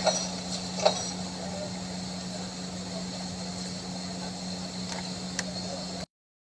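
Steady street background noise with a constant low electrical hum and a few sharp clicks, cutting off abruptly to silence near the end.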